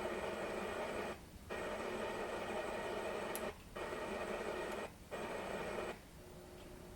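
Custom Autosound USA 740 car radio giving out a steady hiss of static, as from a gap between stations. The hiss drops out briefly three times and stops about six seconds in.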